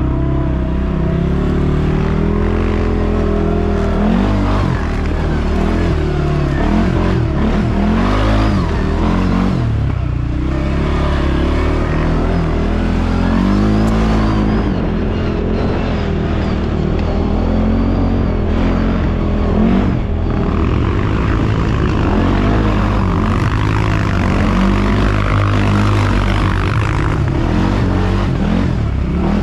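ATV engine running under throttle, its pitch rising and falling again and again as the rider works the throttle, over a steady low rumble.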